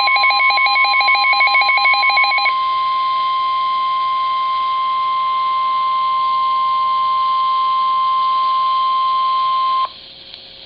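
NOAA Weather Radio warning alarm tone: one steady 1050 Hz tone held for about ten seconds, then cut off suddenly near the end, leaving faint hiss and hum. For the first two and a half seconds a fast, pulsing electronic beeping plays over the tone.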